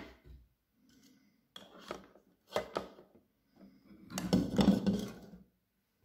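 Hand-blender parts and power cord being handled: scattered clatter, knocks and rubbing, loudest about four seconds in. The blender motor is not running.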